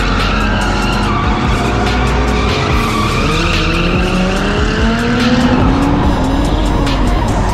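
Drift cars sliding, tires screeching over an engine that revs up, rising in pitch from about three seconds in. Background music plays under it.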